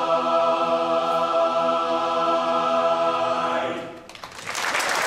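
Men's barbershop chorus holding a long final chord a cappella, cut off about four seconds in; applause then breaks out and swells.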